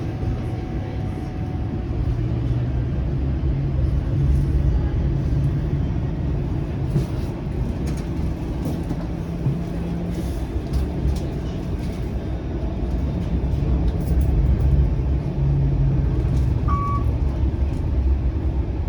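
Inside a Bombardier Flexity Outlook low-floor streetcar running between stops: a steady low rumble with a motor hum that shifts in pitch as the car changes speed. A short beep sounds near the end.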